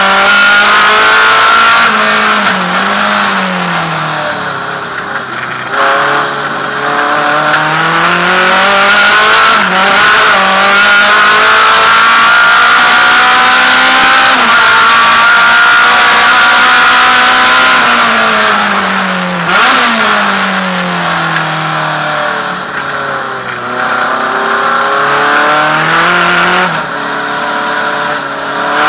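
Naturally aspirated Alfa Romeo race car engine, heard from inside the cabin, revving hard. Its pitch climbs steadily through the gears and drops sharply on each lift or downshift, several times over.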